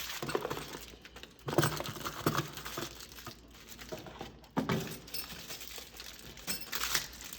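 Handling noise from door-latch hardware: rustling and crinkling, with a few short knocks, the clearest about a second and a half in and again around four and a half seconds.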